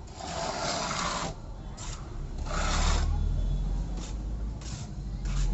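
Hand tool scraping and rubbing across a textured wall coating in separate strokes: a long stroke at the start, another about two and a half seconds in, then a few short ones. A low rumble runs underneath.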